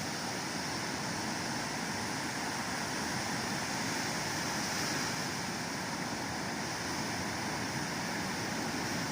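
Ocean surf, a steady wash of noise.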